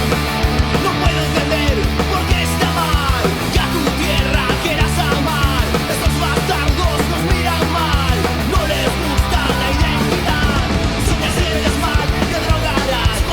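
Oi! punk rock song playing loud and steady, with a full band of electric guitars and drums.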